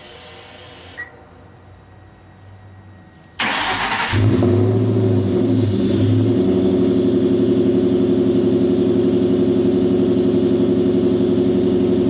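A 2003 Ford SVT Cobra's supercharged 4.6-litre V8 cold-started a little over three seconds in: a short crank, then it catches, flares unevenly and settles into a steady fast idle. The exhaust runs through stock manifolds, an off-road X-pipe and a Bassani 2.5-inch catback with its baffles still in.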